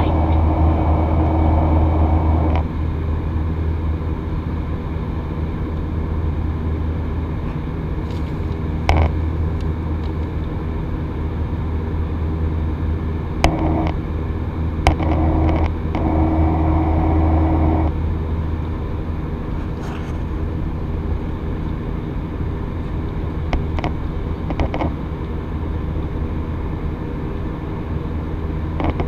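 Jet airliner cabin noise during the climb after takeoff: a steady low engine drone under the rush of airflow, heard at a window seat over the wing. It steps down slightly about three seconds in, and a few light clicks sound here and there.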